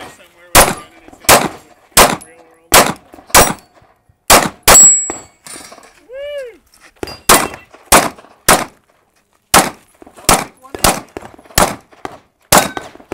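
Pistol fired in a string of about fifteen shots at steel targets, roughly one shot every two-thirds of a second, with a pause of about two seconds near the middle.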